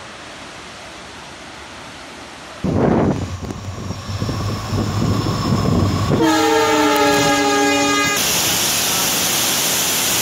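A passing train: a sudden low rumble about two and a half seconds in, then a multi-tone train horn sounding for about two seconds with its pitch sagging slightly. The horn cuts off abruptly into a steady rushing noise.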